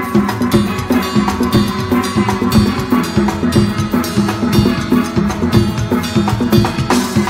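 Steel band playing live: steel pans sounding pitched notes over a steady groove from a drum kit and congas.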